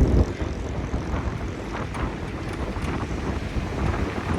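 Ford GPW jeep's engine running hard off-road, a loud, rough, uneven rumble.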